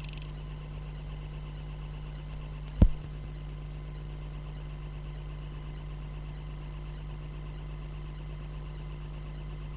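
Steady low electrical hum with faint hiss, the bare background of an old film-to-video transfer with no soundtrack content, broken once by a single loud pop a little under three seconds in.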